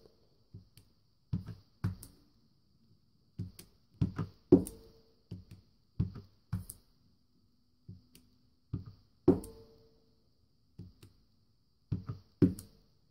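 Clear stamp on an acrylic block tapped on an ink pad and pressed onto paper: irregular knocks and taps, about one or two a second, some with a brief ring.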